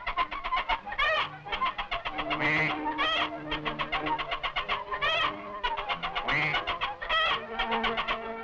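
Cartoon fowl clucking in a fast, even rhythm, with a longer wavering squawk about every two seconds, over low held notes of the music score.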